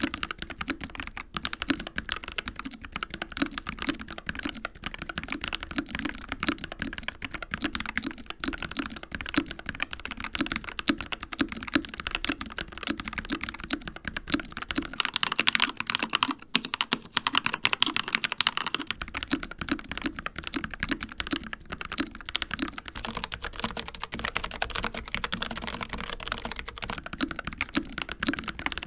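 Rapid, continuous typing on mechanical keyboards, the clacks of the key switches following close on one another. The first board is a Dark Project KD083A with G3ms Sapphire switches. About halfway through it changes to a Keychron K2 with Gateron Red switches, and later to a Logitech MX Mechanical Mini with Kailh Brown switches.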